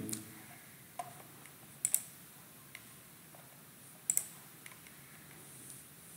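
Computer mouse clicking a few times against a faint background: a light click about a second in, then sharper paired clicks near two and four seconds, with a few fainter ticks between.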